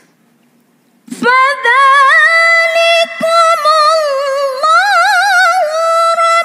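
A woman's voice reciting the Quran in melodic tilawah style. One long, high phrase begins about a second in, held on sustained notes with wavering ornaments midway through.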